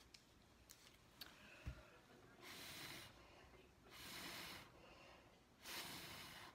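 Person blowing by mouth across wet acrylic paint on a canvas to push it out in a Dutch pour: three breathy blows, each under a second, starting about two and a half seconds in. Before them come a few faint clicks and a short soft knock.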